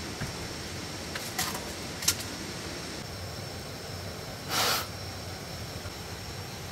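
Steady background hiss with a thin unbroken high-pitched tone, a few sharp clicks in the first half, the sharpest about two seconds in, and a brief rustle about two-thirds through.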